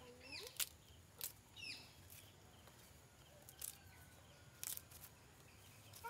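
Quiet, sharp snaps and clicks of fresh moringa (drumstick) pods being split open and cut by hand with a small knife, three or four of them, with a few short bird chirps between and a hen's clucking trailing off at the start.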